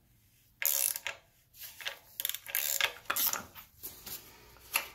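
Ratchet wrench clicking in bursts as it is swung on the crankshaft bolt that drives a front crankshaft seal installer tool on a BMW M52 engine.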